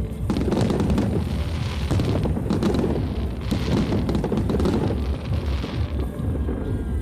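Fireworks display: shells bursting in quick succession with low booms and dense crackling, the crackle swelling loudest just after the start and again around the middle.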